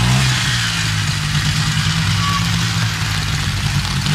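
Engines of a quad ATV and an old pickup truck running at low speed as they pass close by on a wet street, over a steady hiss.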